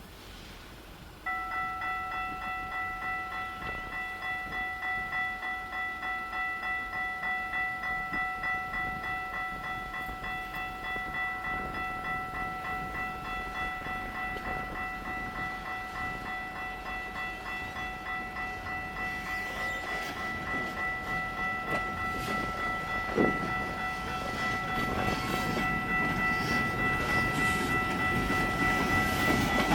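Level-crossing warning bell switching on suddenly and ringing steadily, about once a second. In the last third the rumble of an approaching CN freight train builds under it, with a single knock about three-quarters of the way through.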